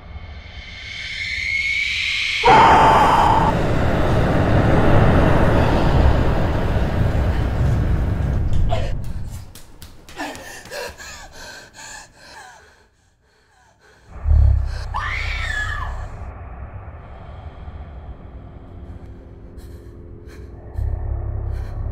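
Horror-film sound effects. A rising shriek swells into a sudden loud burst of harsh noise over a deep rumble that lasts several seconds, followed by scattered clicks and a brief near-silence. A sudden loud hit comes about fourteen seconds in, with a short voice-like sound bending in pitch just after it.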